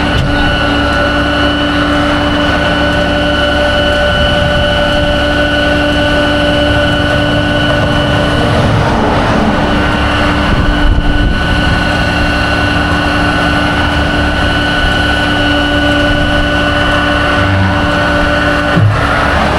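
Vehicle running at a steady speed: a constant engine and road drone with a steady whine on top.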